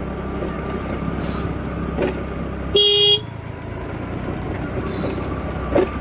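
Motor scooter engine running steadily while riding, with one short horn toot about three seconds in. There is a light knock about two seconds in and another near the end.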